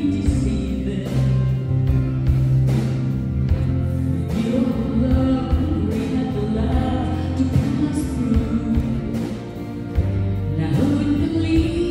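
A live band playing a song: a woman sings lead into a microphone over acoustic guitar, electric bass and drums, with a steady beat.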